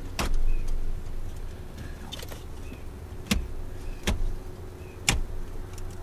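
Sharp plastic clicks and knocks, about four of them spaced a second or so apart, as the head-unit panel is pressed back into a 5th gen Toyota 4Runner's dash, over a steady low hum.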